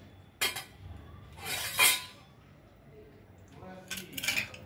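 A metal spoon stirring thick khichuri in an aluminium pressure cooker pot, clinking and scraping against the pot. There is a sharp clink about half a second in, a scrape near two seconds, and a few quick knocks near the end.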